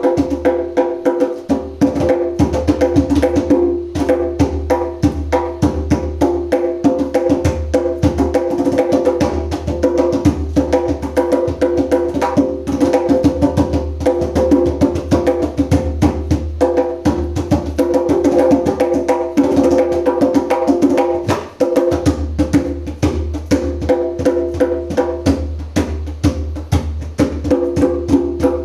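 Djembe played with bare hands: a fast, unbroken rhythm of drum strokes.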